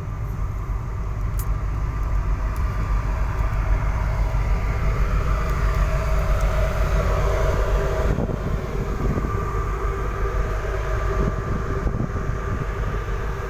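Steady low rumble and hum of a ship underway, its engines droning with a few steady tones over a deep rumble.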